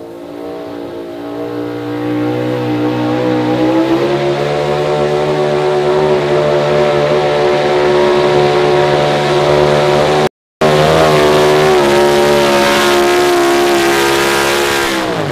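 A Chevrolet pulling pickup's engine at high revs under full load, dragging the sled. Its pitch climbs over the first few seconds and then holds high and steady. Right at the end the pitch drops away fast as the throttle is shut and the pull ends.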